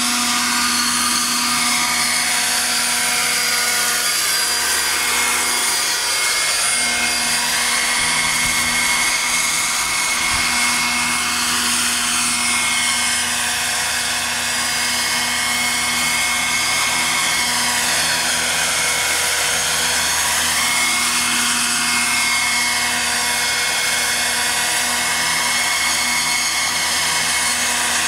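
Roban radio-controlled scale H145 helicopter hovering and slowly manoeuvring: a steady whine from its motor and rotors with a rotor whir underneath. From about halfway on, a slow swooshing rise and fall of the tone comes and goes as the helicopter moves about.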